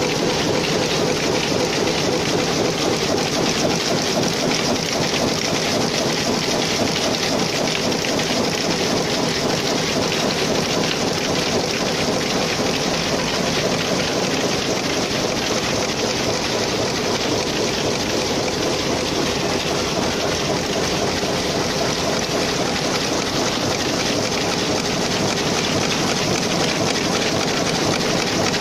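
Power loom running steadily while weaving cloth, a loud, dense, even clatter of the weaving mechanism.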